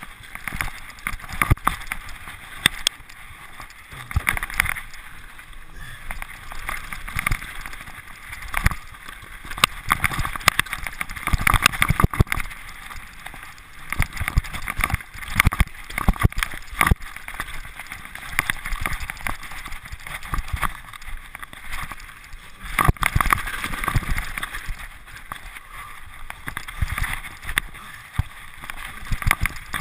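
Mountain bike descending a rocky trail: tyres rattling over stones, with frequent irregular knocks and clatters from the bike over a steady rushing noise.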